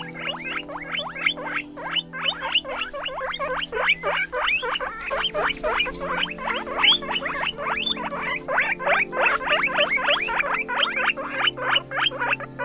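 Guinea pig squeaking in a fast, continuous run of short high squeaks, each falling in pitch, about five a second, over low steady background music.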